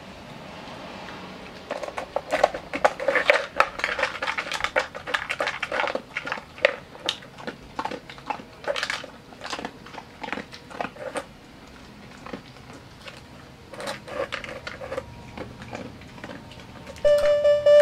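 A dog working a hard plastic puzzle feeder: the plastic cups and base click and knock as she noses and shifts them, with crunching as she eats kibble from the wells. Music starts near the end.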